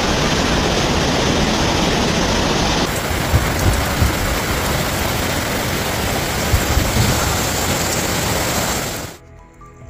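Heavy rain and rushing floodwater, a loud steady rush with a few low thuds in the middle. It cuts off abruptly about nine seconds in.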